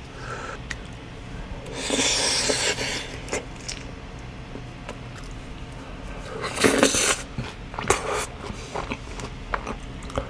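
Eating sounds of someone working through sauced boneless fried chicken: chewing and smacking, with small clicks and rustles. Two louder noisy rustles come about two seconds in and again about seven seconds in.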